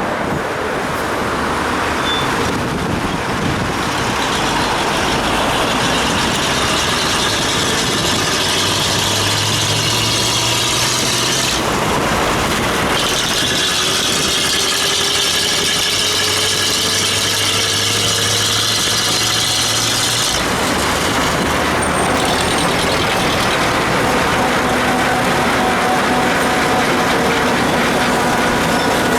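Road traffic heard from a bicycle on a wet road: engines of passing vehicles and the hiss of tyres on wet tarmac. A brighter hiss rises from about twelve seconds in and drops away around twenty seconds.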